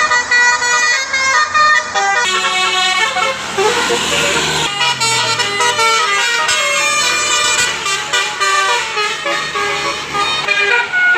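Tour bus's basuri telolet horn, a multi-tone musical air horn with roof-mounted trumpets, sounding loudly and playing a quick tune of changing notes.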